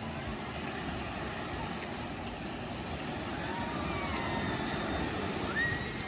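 Sea surf washing up onto a sandy beach: a steady rush of breaking and receding waves, with a faint high call that starts near the end.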